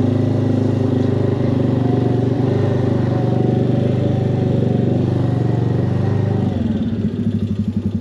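Can-Am Outlander 450 ATV's single-cylinder engine held at steady high revs while the quad is driven through pond water and mud. About six and a half seconds in it drops to a lower, pulsing idle.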